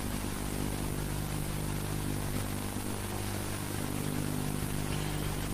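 Steady electrical hum with several steady low tones over an even hiss: the background noise of an old sermon recording.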